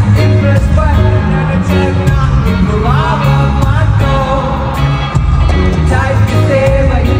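Live concert music played loud through a venue's sound system: a band with a heavy bass beat and a singer's voice wavering over it.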